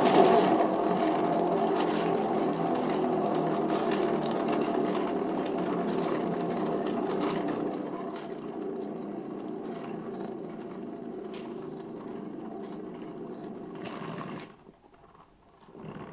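Paint-pouring spinner turning with a steady rattling whir, fading as it slows and stopping about fourteen seconds in. The spinner is clunky and in need of replacing.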